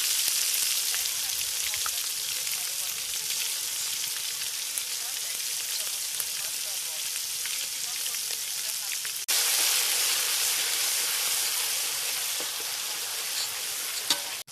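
Hot oil sizzling steadily in a cooking pan as pickle spices fry. It cuts out for an instant about nine seconds in and comes back a little louder.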